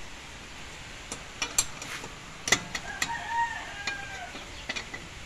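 Scattered sharp metal clicks from a hand lug wrench working the lug nuts of a steel car wheel as they are loosened. About three seconds in, a rooster crows faintly.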